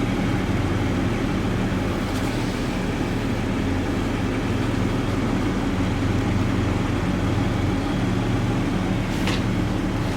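Toyota A90 Supra's engine running steadily at idle, a low, even hum.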